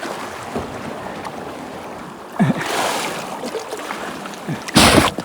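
Seawater sloshing and splashing close to the microphone, with a loud rush of water shortly before the end.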